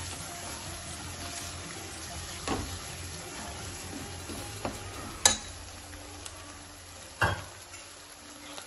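Tomato-onion masala with ground spices sizzling as it fries in a steel kadai, stirred with a ladle. The ladle knocks sharply against the pan four times, loudest about five seconds in.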